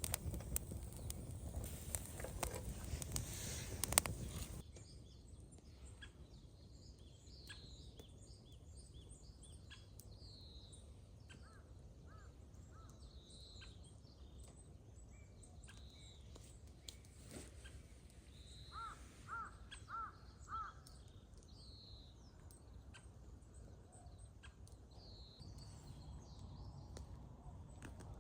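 Crows cawing, four short caws in a row about two-thirds through, with sparse high chirps of small birds throughout. For the first few seconds a louder crackling noise covers them, then cuts off suddenly.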